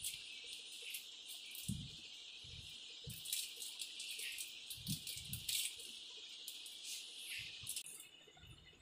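Block of cheese rubbed against a handheld stainless-steel grater: a run of quick scraping strokes, busiest in the middle, with a few soft knocks of the grater. A steady high hiss sits underneath and cuts off suddenly near the end.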